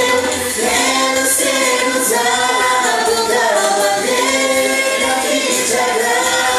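Voices singing a worship song, with long held notes that glide between pitches.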